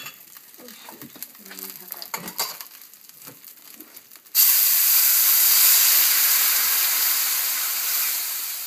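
Wine poured into a hot skillet of chicken drippings, deglazing it: a sudden loud sizzling hiss with steam starts about halfway in and slowly dies down.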